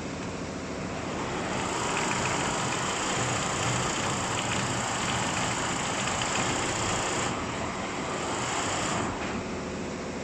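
Multi-head embroidery machine running, a steady dense mechanical noise that grows louder after a second or so and drops suddenly about nine seconds in.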